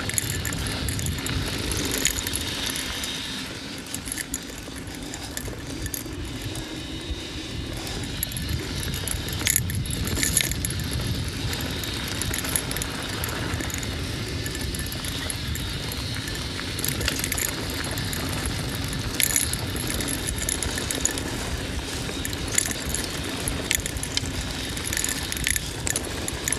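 Mountain bike riding down dirt singletrack: tyres rumbling over the trail, with the chain and bike parts rattling and clicking continuously and sharper knocks over bumps and rocks.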